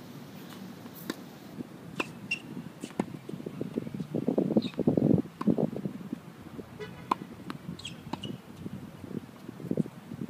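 Tennis rally on an outdoor hard court: racket strikes and ball bounces as sharp, irregular pops, over an outdoor rushing noise that swells louder about four to five seconds in.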